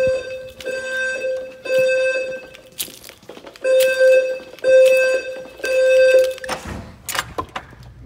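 Fire alarm evacuation tone from a Notifier NFS2-640 voice evacuation system, pulsing in a temporal-three pattern: three pulses of about a second each, a pause, then three more. A couple of sharp knocks come between and after the groups.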